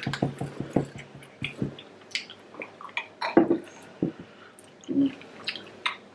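Close chewing and mouth sounds of thick, chewy prawns: irregular wet smacks and clicks, a quick run of them in the first second, then scattered, with a couple of brief vocal sounds.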